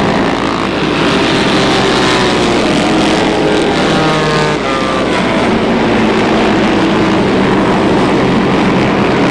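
Vintage flat-track racing motorcycles running hard around the track, their engine pitch rising and falling.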